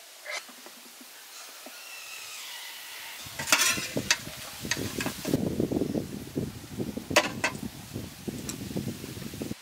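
A metal ladle clinks and scrapes against a perforated metal steamer tray as steamed squid and lemongrass are scooped out, with wet clattering handling. It starts about three seconds in and is busiest in the second half, with a few sharp clinks standing out.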